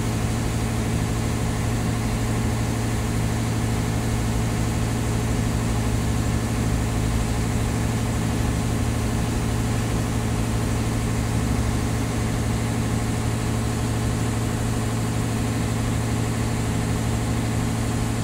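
An engine running steadily at an even speed: a deep, constant hum with no change in pitch or loudness.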